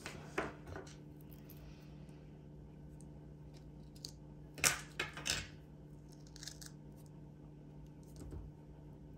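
Scissors snipping through a sticker sheet while trimming a sticker: two snips near the start, then a quicker run of three about halfway through, and a few fainter snips after.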